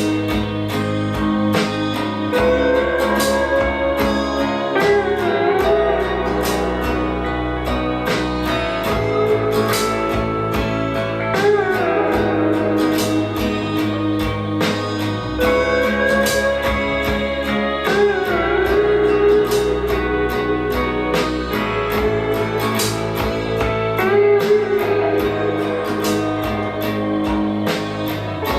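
Guitar-led music with a steady beat played through a pair of JBL Decade L16 bookshelf loudspeakers, the lead notes gliding and wavering in pitch like a slide guitar.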